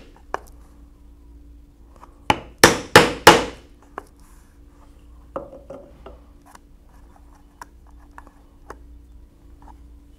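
A mallet striking a 1/8-inch hole punch through leather on a work table. A light tap comes first, then four quick, loud blows a little over two seconds in, followed by scattered soft taps and clicks.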